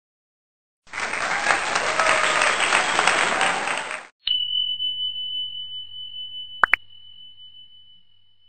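A burst of applause lasting about three seconds, then a single high bell ding that rings out slowly, with a sharp click partway through the ring.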